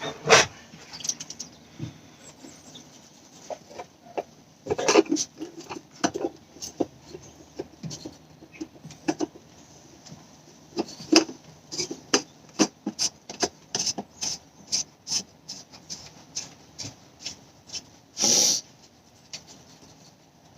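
Irregular clicks and knocks of hands and tools working the oil filter housing cap of a Ford 2.0 TDCi diesel through a tight gap in the engine bay, with a short louder rasp about 18 seconds in.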